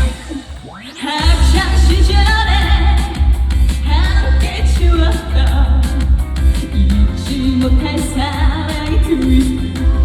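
Live band playing an upbeat trot song with a woman singing over it. About a second in, the bass and drums drop out briefly under a rising sweep, then the full band comes back in.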